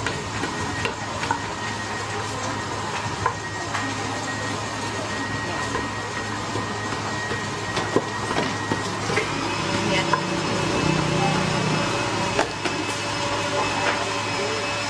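Food-stall background: a steady hum and noise with faint voices, broken by scattered light wooden knocks and clicks of utensils, about one every second or two.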